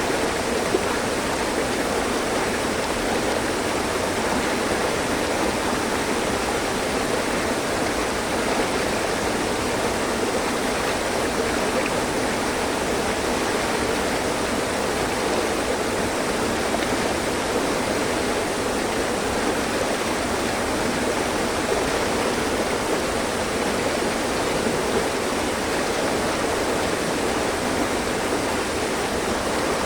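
Mountain stream flowing over rocks: a steady, even rush of water.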